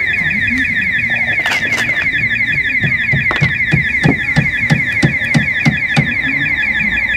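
An electronic alarm siren sounding continuously with a fast warbling tone. From about three seconds in, a run of dull knocks, roughly three a second, rises under it.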